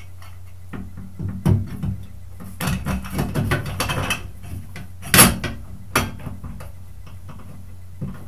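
Metal faucet trim parts being handled and fitted: a run of clinks and rattles, then two sharp knocks, over a steady low hum.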